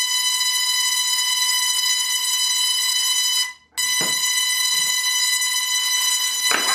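Musical Tesla coil's spark discharge sounding one sustained, steady high note with a harsh, buzzy edge. The note cuts out briefly about three and a half seconds in, then resumes.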